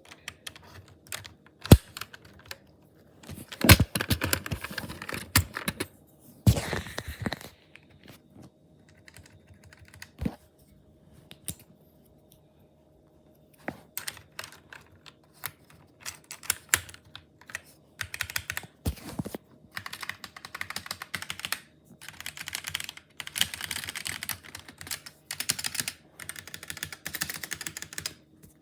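Typing on a Magegee MK Box mechanical keyboard with red linear switches: runs of rapid keystrokes broken by a few short pauses, with a longer lull near the middle.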